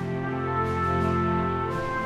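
Background music: brass-led orchestral score with held chords.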